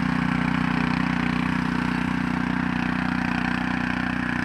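Small farm tractor's engine, a tiller loosening soil for shallot beds, running steadily with an even, fast engine beat.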